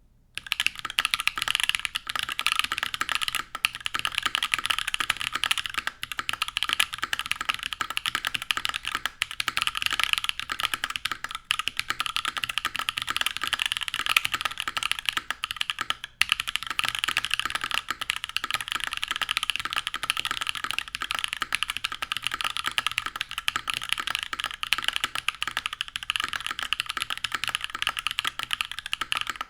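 Continuous fast typing on a custom tenkeyless mechanical keyboard with tactile Holy Panda switches lubed with Tribosys 3204, a full aluminium plate in a top mount, and GMK keycaps. The keystrokes start about half a second in, with brief pauses around six and sixteen seconds.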